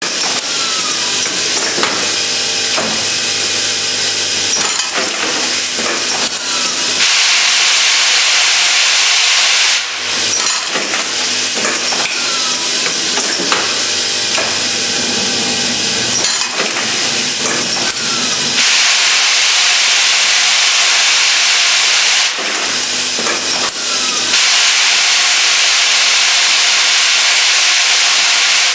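Automatic hinge assembly machine running through its cycle: clicking and knocking of pneumatic actuators and parts moving in the fixture. Three times, a steady hiss of compressed air runs for a few seconds.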